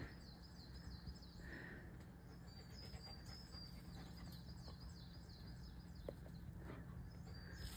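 Quiet woodland background with a bird repeating short, high, falling chirps.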